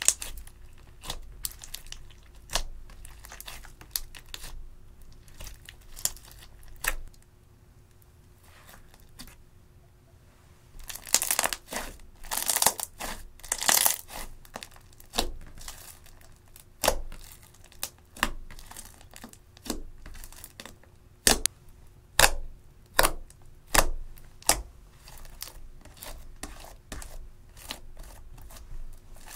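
Hands squeezing and kneading clear slime mixed with eyeshadow, giving a string of sharp wet pops and clicks. A denser run of crackling comes a little before the middle.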